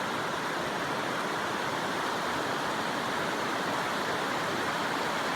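Steady rushing of flowing stream water, an even hiss with no change.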